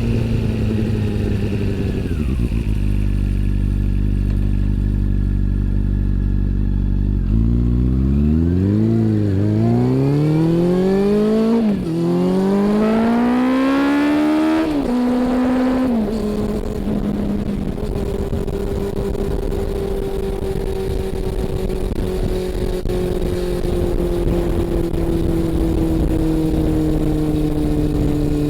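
Honda CB400 Super Four (NC42) inline-four engine and exhaust under way. It holds low revs at first, then revs climb sharply about a third of the way in, with two quick drops in pitch at upshifts, before settling into a steady cruise with the note slowly falling.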